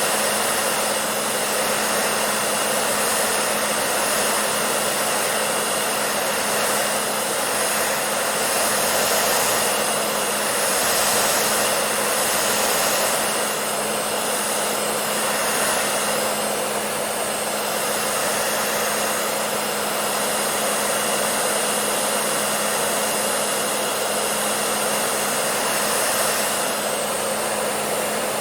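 Electric hair dryer running continuously with a steady blowing rush and a constant low motor hum, swelling slightly a few times.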